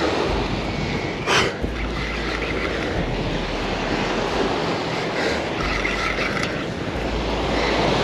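Small waves washing onto a sandy beach, with wind buffeting the microphone and a brief louder rush about a second in.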